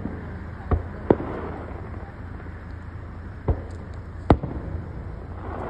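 Fireworks going off: four sharp bangs at uneven intervals, over a low steady hum.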